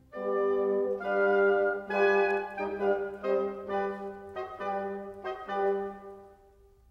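Background music: a slow phrase of sustained wind and brass notes over a held low note, fading away near the end.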